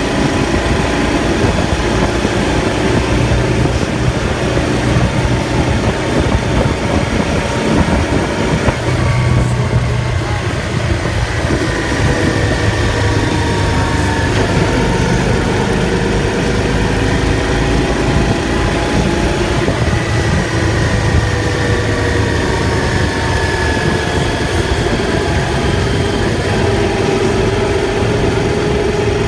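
Motorcycle engine running steadily while riding, its pitch drifting slowly up and down over a constant rush of road and wind noise.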